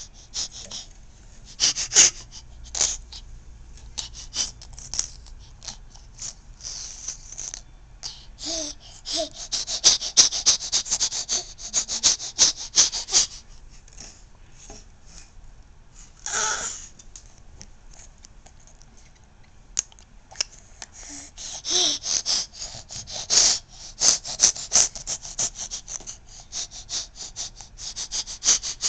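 Baby laughing in runs of short, breathy, wheezy giggles, with a few brief squeals among them; the giggling comes in two longer runs, in the middle and toward the end.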